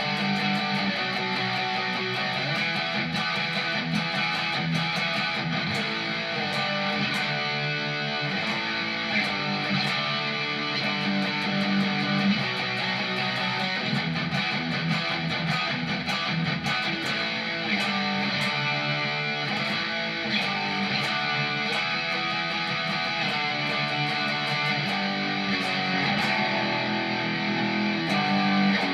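Electric guitar, a Squier, played through a preset of an M-VAVE MK-300 multi-effects unit: a continuous run of picked notes and strums.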